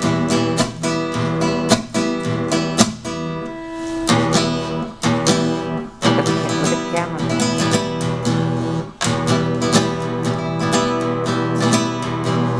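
Nylon-string classical guitar played with quick, repeated strummed strokes, with a chord left ringing for about a second roughly three seconds in.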